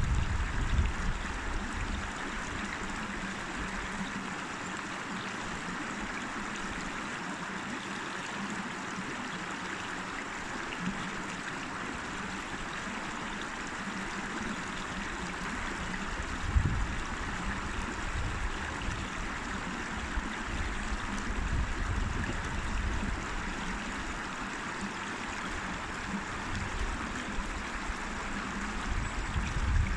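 River water flowing steadily with an even rushing sound. A few short low rumbles break in, the strongest a little past halfway.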